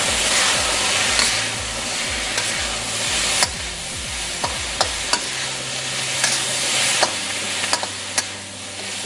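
Food sizzling as it is stir-fried in a hand-hammered carbon steel wok, with a spatula scraping and clicking sharply against the wok again and again as the food is tossed.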